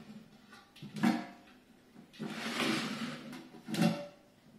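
Metal cooking pot and its lid knocked about by a cat's paw: a clank about a second in, a longer scraping rattle from about two seconds, and another clank near the end.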